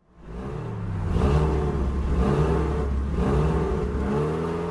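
Car engine revving over and over, its pitch rising and falling about four or five times over a steady deep rumble.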